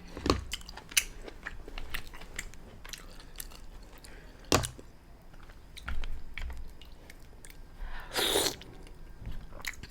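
Close-miked chewing and wet lip-smacking of mussels, with many sharp mouth clicks and smacks; the loudest smack comes about four and a half seconds in.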